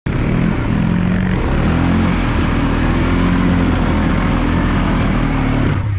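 ATV engine running under load as the quad drives through a muddy track, the engine note wavering slightly with the throttle, with tyre and mud noise. It cuts off abruptly at the end.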